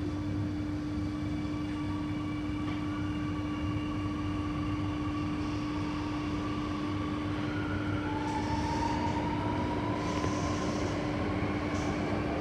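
Inside an Alstom Metropolis C830C metro train running under power: a steady hum and rumble of the car, with the traction motor whine rising slowly in pitch from about eight seconds in as the train gathers speed.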